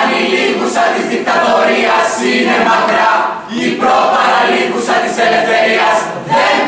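A group of young voices singing together as a choir, in sung phrases of about two seconds with short breaks between them.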